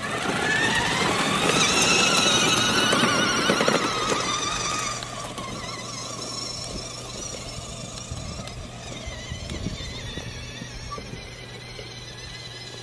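Electric drive motors of a kids' ride-on Super Duty truck whining as it drives in its low speed setting, the pitch rising then easing back down. It is loudest for the first five seconds, then the truck runs on more quietly.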